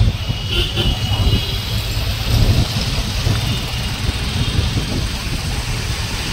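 Road noise from a taxi driving in traffic, heard from inside the cab with the side window open: a steady low engine and tyre rumble with the hiss of surrounding traffic.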